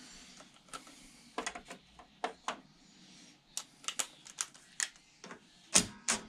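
Metal sockets and a socket extension clinking against a metal tool tray: scattered sharp clicks and light knocks, with louder knocks near the end.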